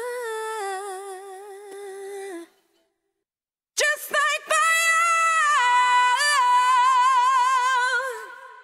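Isolated female lead vocal with no accompaniment, holding two long sung notes with vibrato. The second note is longer, with quick turns, and falls away near the end.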